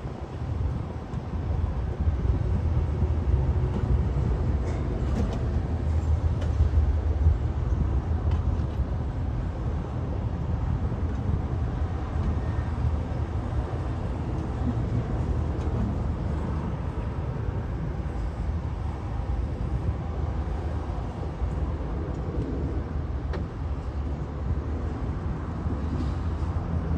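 JCB backhoe loader's diesel engine running steadily under work, a constant low hum.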